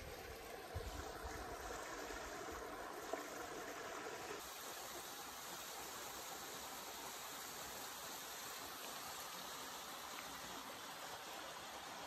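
Small mountain stream running over mossy rocks and a little cascade into a pool, a steady rushing hiss. A few low bumps in the first three seconds.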